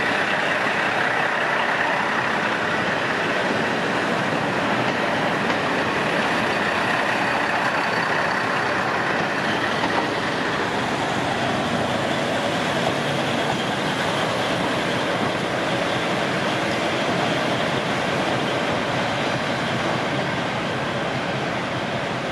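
Former JR East KiHa 40 diesel railcar train pulling out: its diesel engines run and its wheels roll over the rails as the cars pass. The sound eases off slightly near the end as the last car moves away.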